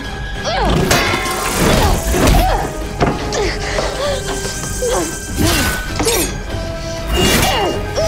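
TV action fight-scene soundtrack: dramatic score music under repeated hits, thuds and crashes, some with breaking glass, and short strained vocal cries.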